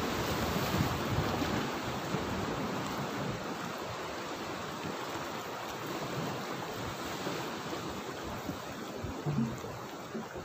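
Small sea waves washing and splashing against the rocks of a breakwater: a steady rushing wash, loudest in the first couple of seconds and easing slightly after.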